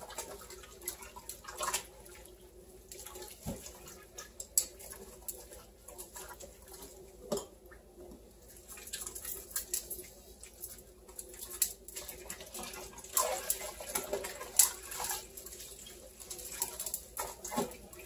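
Hands being washed under a running tap in a stainless steel kitchen sink: water running and splashing, with irregular small clicks and knocks.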